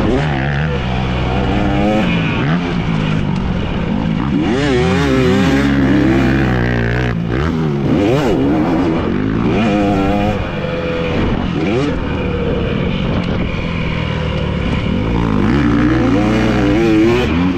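Dirt bike engine being ridden hard, the revs rising and falling again and again with throttle and gear changes.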